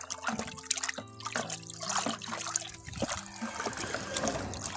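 Water swishing and trickling in a bucket as a hand stirs fungicide powder into it, with background music playing.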